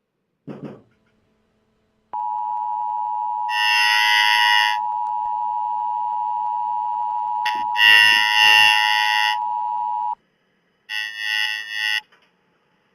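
Emergency Alert System attention signal: a steady two-tone beep from about two seconds in until about ten seconds in. Three short screeching bursts of digital header data come over and after it. A brief thump comes about half a second in.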